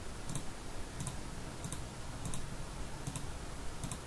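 Computer mouse button clicking, faint, six times at a steady pace of about one click every two-thirds of a second.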